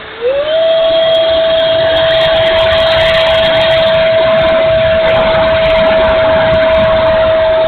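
Electric ducted fan of a Dynam Meteor RC sport jet throttling up about a third of a second in: its whine jumps in pitch and loudness, then holds steady at high power.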